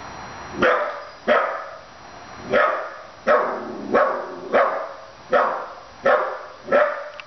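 A 15-week-old puppy barking repeatedly, about nine short barks spaced roughly two-thirds of a second apart, the first coming just under a second in.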